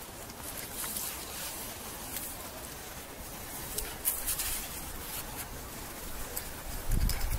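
Scuffing and scraping in wet sand while a landed eel is grabbed on the riverbank, with scattered small crackles over a steady outdoor hiss. A louder low rumble comes near the end.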